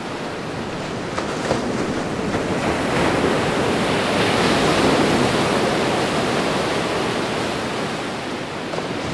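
Surf washing on a sandy beach: a steady rush of wave noise that swells in the middle and eases off toward the end.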